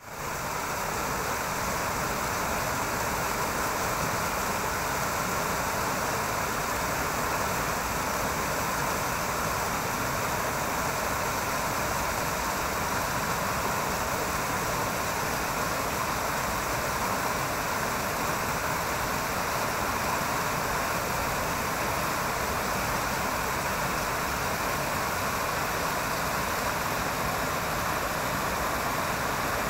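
Shallow river rushing over rocks in white-water rapids, a steady, unbroken noise of running water.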